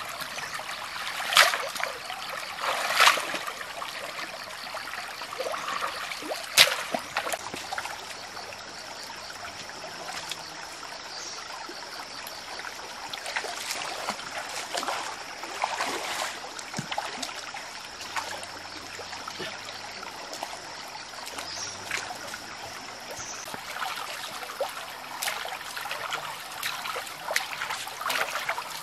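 Shallow stream water trickling steadily, with a few loud sudden splashes in the first seven seconds as hands work stakes and mud in the water.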